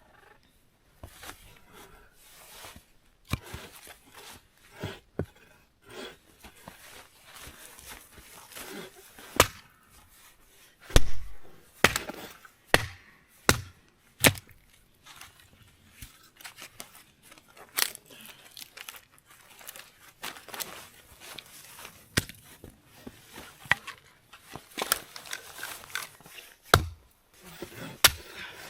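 Scattered, irregular sharp cracks and knocks of wood being chopped and broken up for firewood, with a few heavier thuds around the middle.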